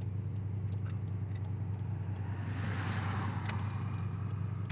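Car driving: a steady low rumble of engine and road noise, with a rushing swell of noise about halfway through, like another vehicle going past.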